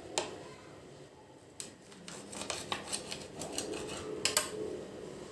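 Kitchen utensils and dishes being handled: scattered clicks and taps. A run of small clicks starts about two seconds in, and the two loudest come near the end.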